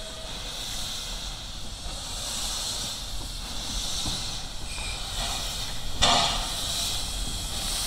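Steam locomotive hissing steadily as steam vents from its open cylinder drain cocks while it moves slowly along the track, with a short, louder gush of steam about six seconds in.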